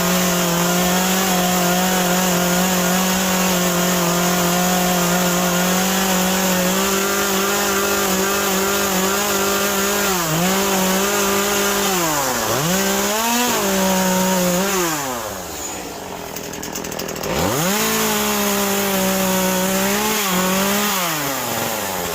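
Gas chainsaw cutting into a wet Western Red Cedar stump, running at high revs with its pitch dipping repeatedly as the chain bites and the throttle is eased. About two-thirds through it drops off for a couple of seconds, then revs up again and throttles down near the end.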